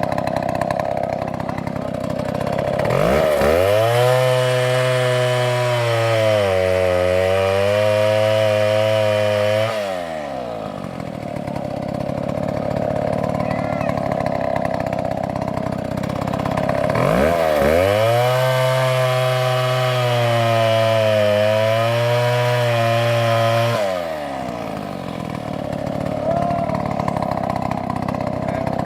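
Two-stroke chainsaw running, twice revved up to full throttle for about seven seconds and dropping back between. During each surge the engine note sags a little, as when the chain is biting into wood.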